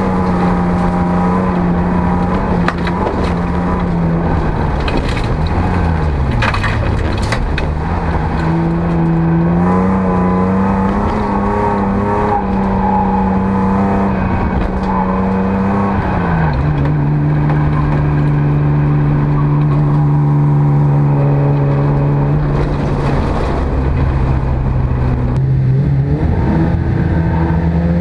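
Jokkis race car's engine heard from inside the stripped cabin, running hard at high revs: it dips and picks up again around six seconds in, settles to a lower steady note about sixteen seconds in and climbs again near the end. Loose gravel crackles under and against the car.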